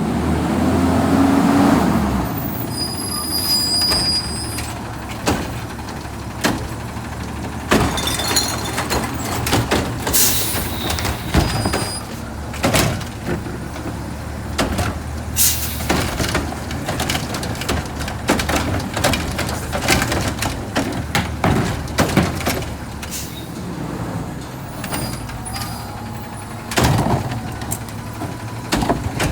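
Autocar ACX McNeilus front-loader garbage truck at work: its diesel engine running, revving up in the first two seconds, with sharp air-brake hisses and frequent clanks and knocks.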